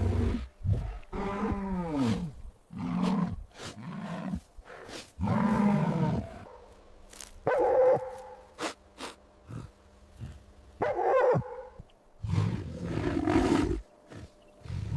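A run of recorded animal calls, one after another, each lasting a second or so with short gaps between, some with a clear pitch that bends downward.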